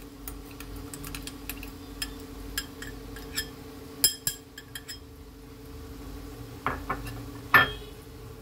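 A glass bowl clinking and tapping against a black kadhai as sugar is tipped in: a string of light ticks, sharper knocks about four seconds in, and a loud knock near the end, over a steady low hum.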